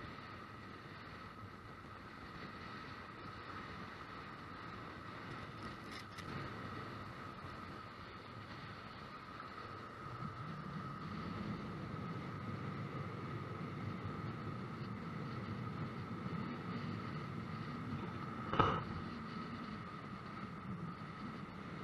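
Storm-surge surf on the Baltic Sea breaking and washing against the shore, with wind on the microphone; the low rush of the water grows stronger about halfway through. A steady thin whine sits under it, and a single sharp knock comes near the end.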